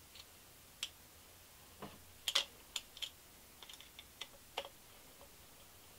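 About a dozen light clicks and taps at uneven intervals, loudest a little past two seconds in. They come from a black plastic air filter housing and its steel hose clamps being handled and fitted onto an aluminium intake elbow.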